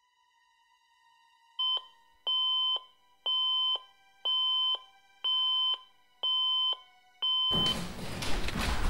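Digital alarm clock beeping: a short beep, then evenly spaced half-second electronic beeps about once a second, all on the same steady tone. About seven and a half seconds in the beeping is cut off abruptly by a loud burst of noise.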